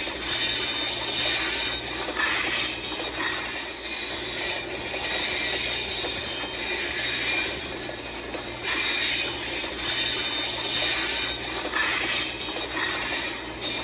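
Train rolling along the track: a steady rumble with thin, high wheel squeal that swells and fades every few seconds.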